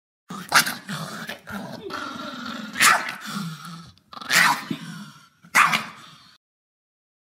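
A small dog growling, broken by four sharp yaps or barks.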